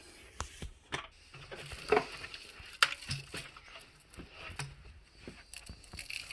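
Hard plastic vacuum cleaner parts and attachments being handled and knocked together: scattered light clicks and knocks, the sharpest about two and three seconds in.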